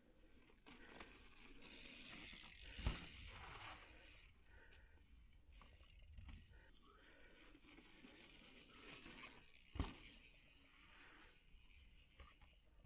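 Mountain bike riding on a dirt trail: the freehub's ratchet ticks as the bike coasts over a rough hiss of tyres and air. Two sharp thumps, the loudest sounds, come about three seconds in and again about ten seconds in.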